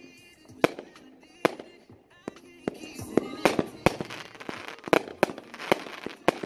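Ninja Fireworks 'Wheelie Time' 500 g fireworks cake firing: sharp bangs roughly every 0.8 s, then from about three seconds in a dense crackling fills the gaps as the bangs come faster.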